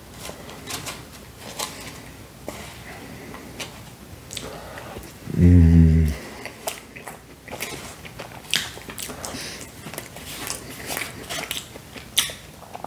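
Close-up eating sounds: a metal fork tapping and scraping a molten chocolate lava cake on its paper tray, with wet chewing and mouth clicks. There is a short, loud hum about five seconds in.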